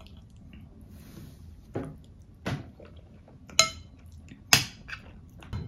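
Metal spoon clinking and scraping against a ceramic plate while scooping food: a handful of sharp clinks a second or so apart, one of them ringing briefly.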